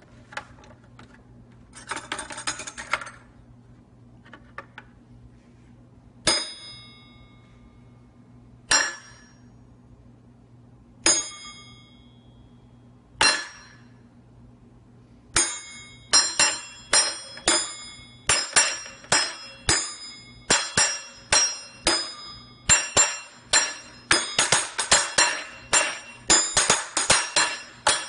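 Metal cutlery in a kitchen drawer played like drums. A brief jangle of rattled silverware comes first, then single ringing clinks about every two seconds, then a fast, steady rhythm of clinks and clangs that gets busier near the end.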